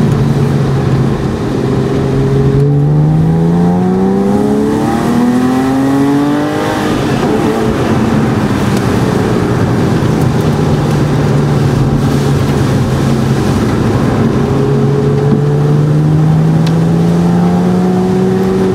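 Porsche flat-six engine heard from inside the cabin. It rises steeply in pitch under acceleration about three seconds in, drops back about seven seconds in, holds a steady note while cruising, then climbs gently again near the end. Tyre noise from the wet road runs underneath.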